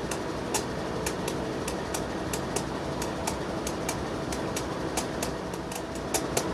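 Train rolling slowly past, with a steady low diesel rumble and wheels clicking regularly over the rail joints, about three clicks a second.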